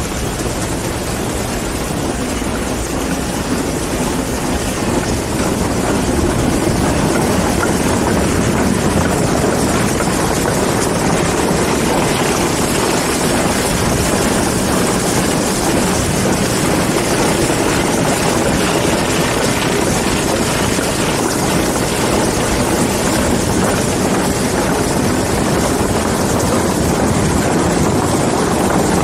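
Antique apple cider mill running, driven by a steam engine: a steady mechanical din that gets louder about five seconds in.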